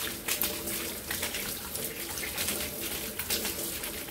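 Kitchen faucet running into a stainless steel sink while an ear of corn is rubbed back and forth under the stream, with water splashing off the cob in uneven spatters.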